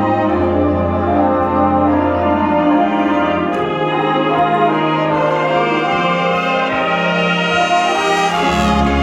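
Marching band brass playing long held chords over low bass notes, the chord changing a few times.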